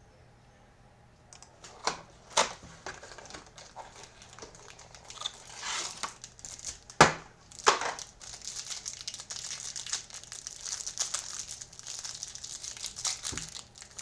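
Trading-card packaging being torn open: sharp tearing snaps about two seconds in and again around seven seconds, then steady crinkling of the plastic wrapping around the cards.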